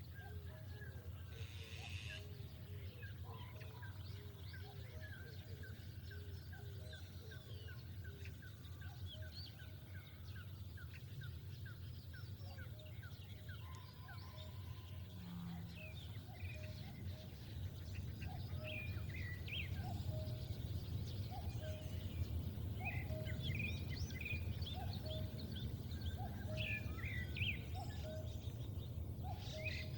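Birds calling: a short low note repeated about once a second, with many brief high chirps scattered over it and growing busier in the second half, over a steady low rumble.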